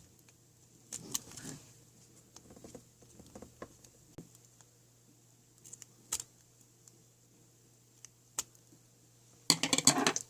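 Scattered scissor snips and small clicks from handling plastic and tape craft pieces, then a short burst of rapid crackling and clicking near the end.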